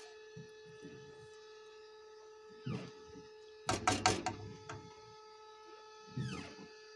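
A wooden spoon stirring and scraping thick chowder in a stainless steel pot, in three short bouts, the loudest about four seconds in. Under it runs a steady high-pitched hum.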